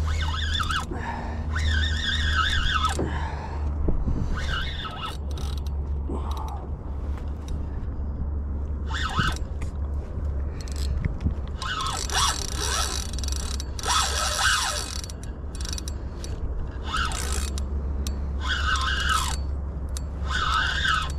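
Spinning reel working against a hooked fish: repeated bursts of whirring and clicking from the reel's gears and drag as line is cranked in and pulled out, over a steady low rumble.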